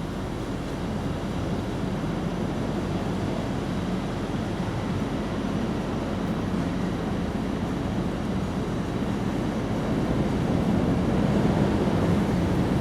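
Steady low outdoor rumble that grows a little louder near the end.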